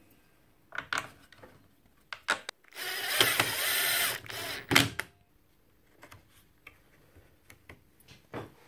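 A long screw being driven into a miter saw's motor housing: one noisy run of about a second and a half near the middle, with a few sharp clicks of tool and metal parts before and after.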